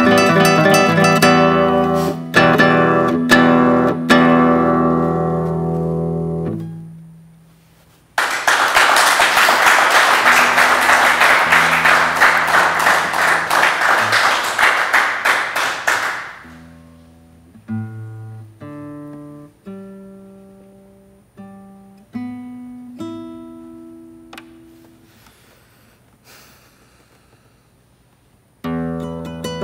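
Nylon-string classical guitar ends a piece on a chord that rings and fades out. Then comes about eight seconds of audience applause, then a few slow, separate plucked notes, and fuller playing starts again near the end.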